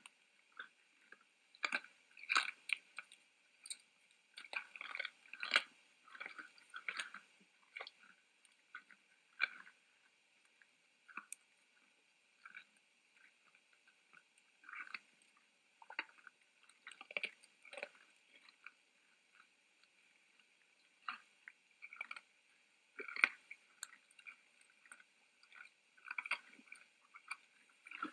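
Red deer feeding at a feeder: irregular crunching and rustling from their eating, coming in short clusters with brief quiet gaps.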